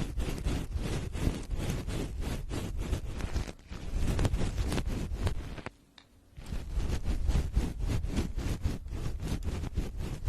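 ASMR 'helicopter' trigger: rapid, rhythmic strokes rubbing and tapping across the microphone, several a second, imitating the chop of helicopter blades. It breaks off briefly a little past halfway, then resumes.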